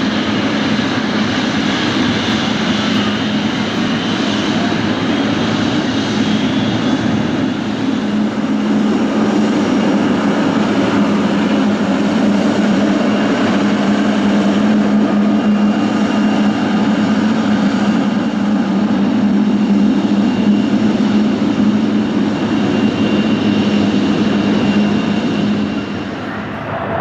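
Boeing 777-300ER's GE90-115B turbofan engines running, a loud steady jet noise with a strong low hum and faint high whine. It swells slightly in the middle and eases off just before the end.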